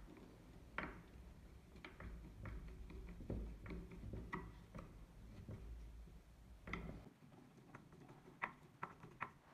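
Screwdriver turning the steel buttplate screw of a Mauser Kar98k stock: faint, irregular small clicks and ticks of the blade in the screw slot.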